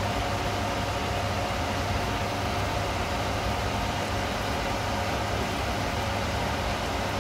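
Steady machine hum and fan hiss of an automatic instant-ramen cooker's induction hob, with a faint steady tone over it.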